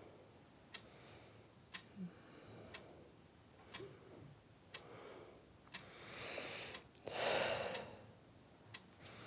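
A clock ticking steadily, about once a second. About six seconds in, a person draws a breath, then lets out a louder sigh, the loudest sound here.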